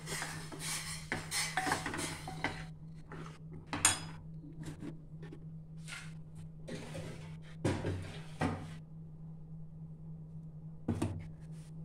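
Steel ladle scraping and stirring a thick tamarind and jaggery mixture in a small stainless steel saucepan for the first couple of seconds, then a few scattered light clinks and knocks, with a steady low hum underneath.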